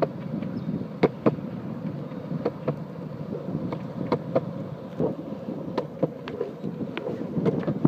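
Longboard wheels rolling on a concrete path: a steady rumble broken by sharp clicks, often two in quick succession, as the wheels cross the joints in the pavement.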